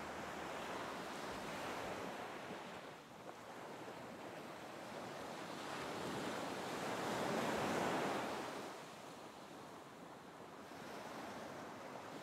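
Ocean surf: waves breaking and washing in, swelling to its loudest about eight seconds in and then falling away.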